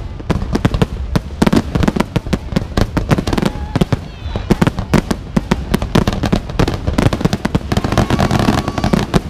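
Fireworks display: aerial shells bursting in a dense, continuous barrage of bangs and crackles, many a second without a pause.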